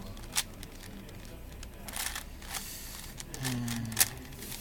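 Plastic 4x4 Rubik's cube being turned by hand: a few scattered clicks and clacks of the layers, the loudest about four seconds in, with a short low voice murmur just before it.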